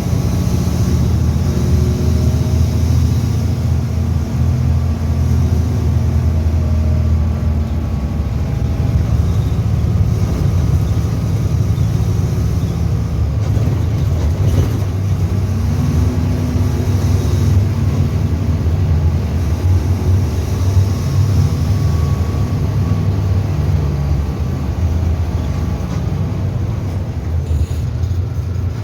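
Mercedes-Benz OF-1722M bus diesel engine running at high revs, its pitch shifting, with a rise about halfway through.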